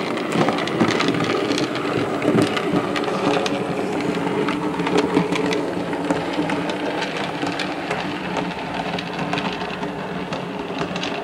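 Model of LNER steam locomotive 2577 'Night Hawk' running along the track: a steady rattling hum with frequent clicks, fading slightly as it moves away.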